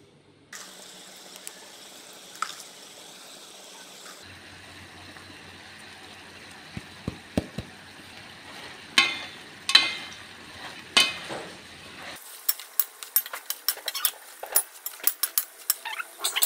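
Stir-fried pork and dried bottle gourd sizzling in a pan, with a spatula clanking against the pan a few times and then rattling quickly as the food is stirred in the last few seconds.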